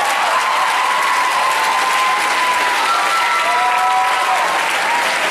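Audience applauding, with several long, held high-pitched cheers over the clapping, most of them in the second half.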